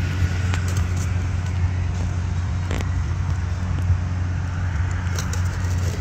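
Steady low engine hum, with a few light clicks and crackles from a foam takeout box being handled.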